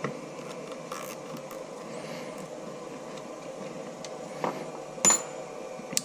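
Faint clicks and rustles of wiring and a plastic zip tie being handled, then a knock and a single sharp snip about five seconds in, as cutters trim the zip tie's tail.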